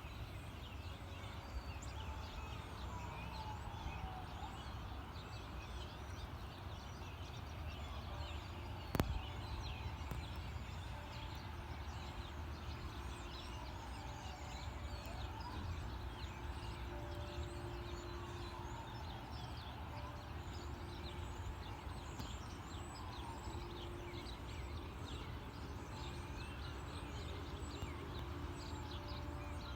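Distant emergency-vehicle sirens, faintly wailing up and down, over birds chirping and a low steady rumble. A single sharp click about nine seconds in.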